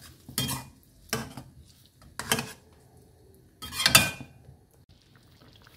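Metal slotted spoon stirring thick curry in a stainless-steel kadai, clinking and scraping against the pan in about four separate strokes. The loudest stroke comes about four seconds in.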